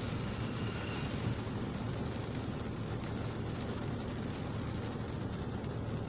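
Heavy rain falling on a car's windscreen and roof, heard from inside the car, as a steady even hiss over a steady low hum.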